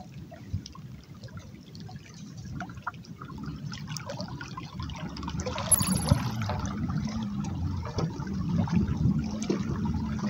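Water trickling and lapping along the hull of a pedal fishing kayak under way. It gets louder over the first half and then stays steady.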